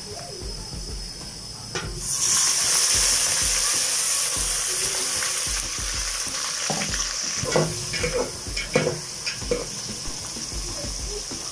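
Water poured onto fried brown onions in hot oil, hissing loudly as it hits the oil about two seconds in and settling to a lighter sizzle. Then a metal spoon stirs the onions, clinking and scraping against the metal pot several times.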